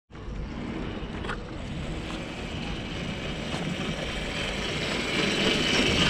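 Kids' electric ATV running across stone paving: the hum of its electric motor and the rumble of its knobby tyres, growing louder toward the end as it comes close.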